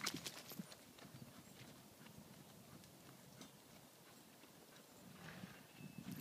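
Faint hoofbeats of a horse cantering on sand arena footing, fading in the middle and a little clearer again near the end.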